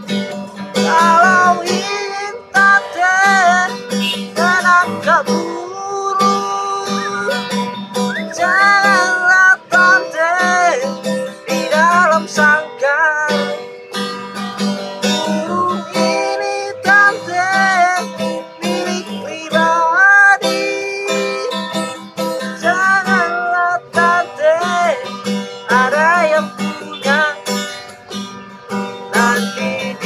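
Acoustic guitar strummed as accompaniment to a man singing a song, his voice sliding and bending on long held notes.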